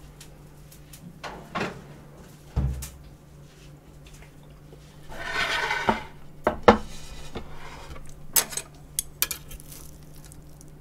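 Metal serving trays and wire racks handled on a tabletop: a dull thump as a tray is set down, a scraping slide as another is moved, and a run of sharp clinks of chopsticks against the metal rack near the end.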